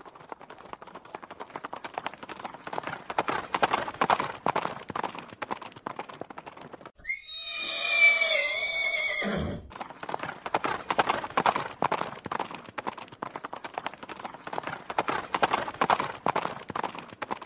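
Horse hooves clip-clopping in a quick rhythm, with a horse whinnying loudly for about two and a half seconds, about seven seconds in, its pitch wavering and then dropping away at the end.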